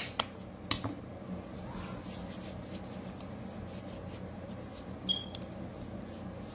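A few clicks and crackles of a white packet being handled in the first second, then faint steady room tone, with one short high chirp about five seconds in.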